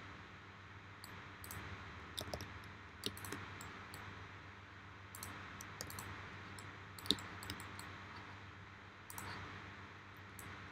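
Irregular, scattered clicks of a computer mouse and keyboard, about a dozen of them, over a faint steady hum.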